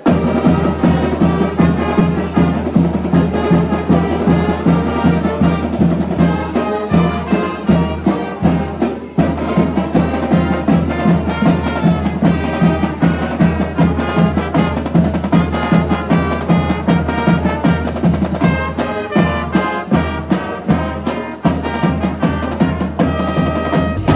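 A marching band playing a tune: trumpets, flutes and sousaphones over a drumline, with tenor drums and bass drum keeping a steady beat.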